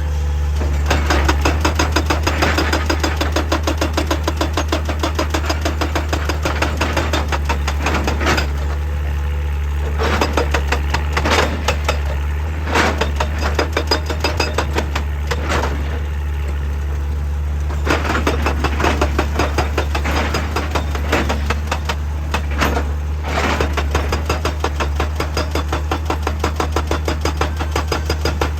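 Excavator's diesel engine running steadily under runs of rapid hammering, several even strikes a second, that stop and start a few times, with a handful of louder single knocks in between.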